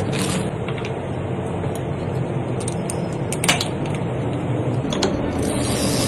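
Steady mechanical whirring of bicycle parts being worked during assembly, with a few sharp clicks.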